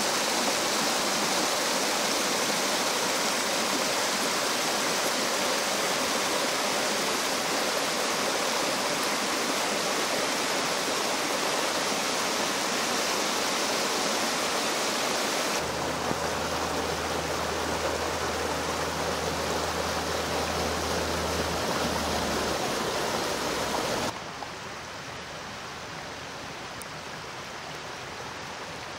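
Steady rushing noise of rain and running storm water. About 15 seconds in the sound shifts and a low hum joins for several seconds, and about 24 seconds in it drops quieter.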